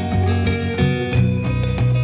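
Background music led by guitar, with held notes over a steady low bass line.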